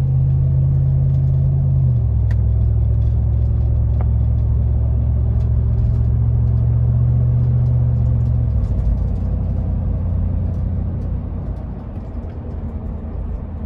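Muffler-deleted Toyota 2UZ-FE 4.7-litre V8 of a fourth-generation 4Runner running under light throttle while driving, a steady low drone heard from inside the cabin. The pitch steps down slightly about two seconds in, and after about eight and a half seconds the drone falls away and the sound gets quieter.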